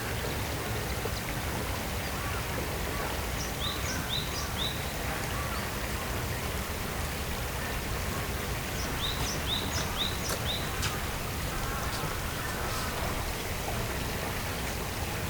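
Steady rush of flowing water. A small bird calls twice over it in short high notes, a run of three about four seconds in and a run of four near ten seconds.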